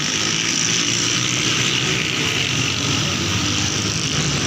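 Steady, unbroken engine drone, like vehicles running close by.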